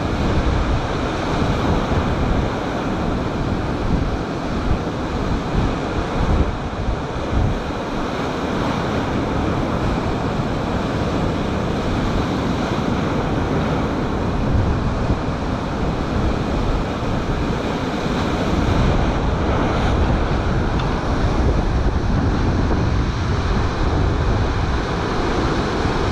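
Storm-driven sea surf washing and breaking on the shore, with strong wind buffeting the microphone.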